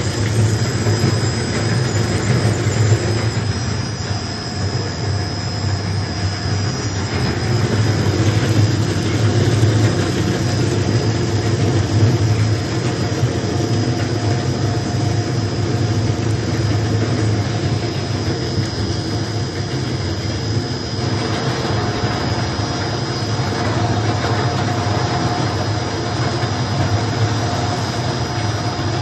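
Fishing net shredder running under load, its rotary cutters chewing nylon net, with a steady low motor hum and a thin high whine over a dense grinding noise that thickens about three quarters of the way through.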